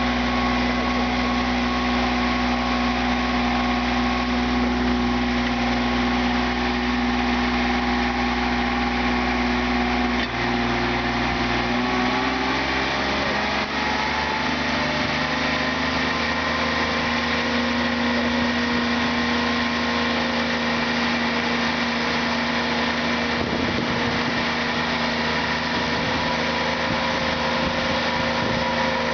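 Mini skid steer loader's engine running steadily while it drives a hydraulic auger. About twelve seconds in its pitch rises a little and then holds steady at the new speed.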